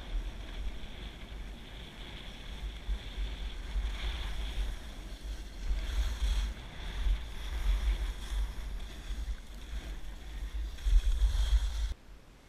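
Wind buffeting the microphone of a camera worn while skiing downhill, a gusty low rumble over the hiss of skis sliding on snow. It grows louder shortly before it cuts off abruptly near the end.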